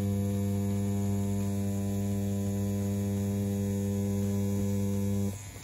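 CNC P6 rotary tattoo pen running with a round shader needle cartridge at 3.6 mm stroke: a steady, even motor buzz. It stops about five seconds in.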